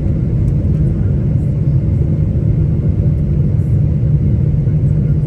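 Steady low rumble of an airplane around its landing, even and unchanging throughout.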